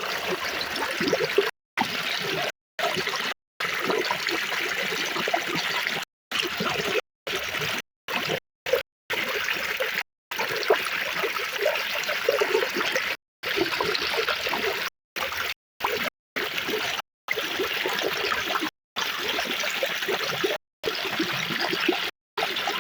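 Water trickling and splashing in a steady flow. It cuts out abruptly into dead silence many times, for a fraction of a second each time.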